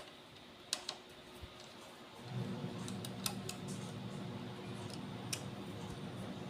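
A few light clicks and taps from the Fluke 8024A multimeter's small plastic and metal parts being handled as its case is opened. A low steady hum sets in about two seconds in.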